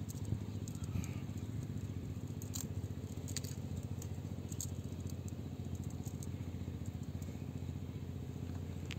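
A steady low mechanical hum, with a few faint clicks and rattles as a cast net with lead sinkers is gathered and handled.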